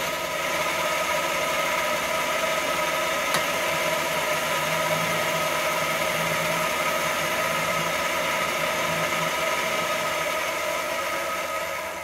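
Vertical turret mill's spindle running in high gear with its face-milling cutter, a steady whine of several tones over a hiss, while the cutter is touched off on the cast-iron cylinder head. The spindle is switched off at the end and the sound drops away abruptly.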